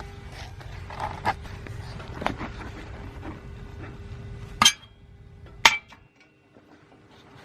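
Small pieces of metal and tools clinking and tapping on a welding bench, with two sharper metallic clanks just before and after the five-second mark, over a steady electrical hum and low rumble that drops away near the end.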